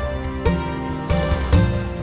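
Soft background music: plucked-string notes with a low bass, with a new note starting about every half second.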